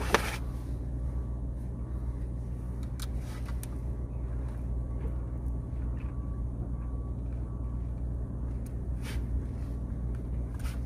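A steady low hum, with a sharp knock right at the start and a few fainter clicks later on.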